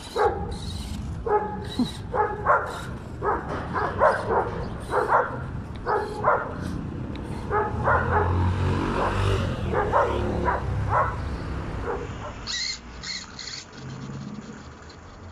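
A dog barking over and over, often two barks close together, about two a second, stopping a little before the end. A low rumble swells underneath around the middle.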